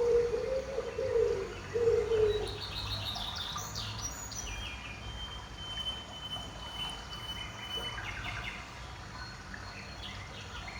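Wild birds calling: a few low coos in the first two seconds or so, then quick high chirps and one long, thin high note lasting a few seconds.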